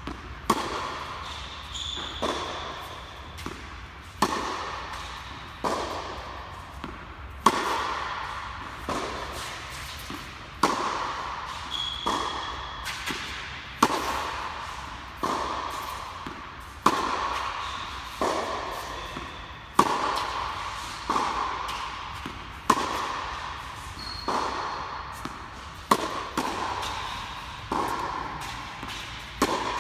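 Tennis ball struck by rackets and bouncing on the court in a steady rally, a sharp pock about every one and a half seconds. Each hit echoes in the large indoor tennis hall.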